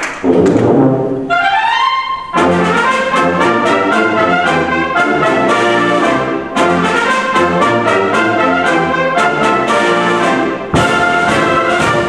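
Concert wind band playing, brass to the fore. About a second and a half in, a glide of several pitches rises together, then full loud music follows. The music breaks off and starts again abruptly, briefly about six and a half seconds in and sharply near the end.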